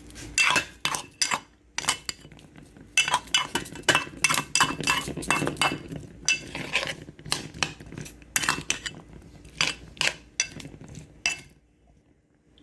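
A spoon stirring chickpeas in a pan, clinking and scraping against it in a quick, irregular run of strokes that stops about a second before the end.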